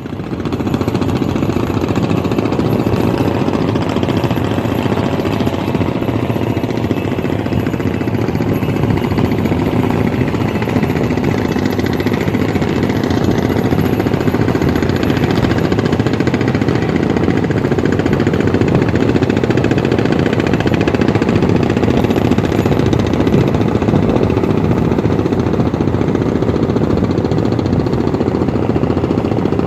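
A boat engine running steadily with a rapid, even knocking beat.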